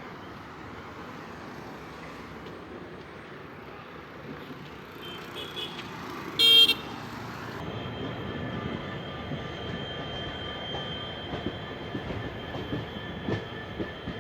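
Steady rumbling vehicle noise with one short, loud horn blast about six and a half seconds in. After it comes a steady high whine with scattered clicks.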